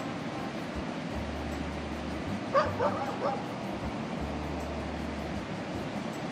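A small dog yipping about four times in quick succession, about two and a half seconds in, excited in greeting.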